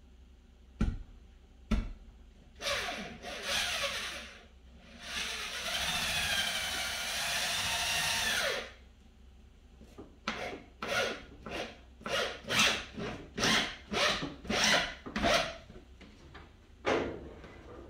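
DeWalt cordless drill driving long screws through a 2x4 into wall studs: two knocks, a few short runs, then one long run with the motor pitch wavering under load. It ends in a string of short trigger bursts, about two a second, as the screws are driven home.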